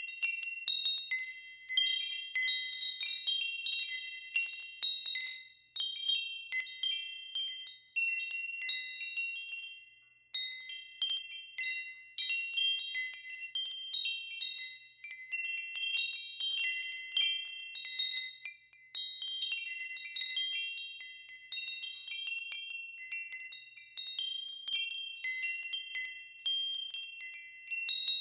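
Wind chimes ringing: irregular clusters of high, bell-like tones struck at random, each note ringing on and fading. There are brief lulls about 6, 10 and 19 seconds in.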